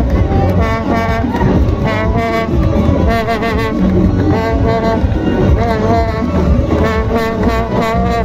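Live Uzbek festive street music: loud brass horns holding long notes and a wavering melody line over a dense low accompaniment, with people talking in the crowd.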